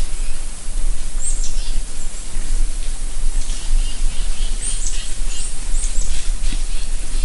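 Wild birds calling with quick, high whistles that slide downward, one about a second in and a run of them in the middle, over a steady hiss and a low rumble.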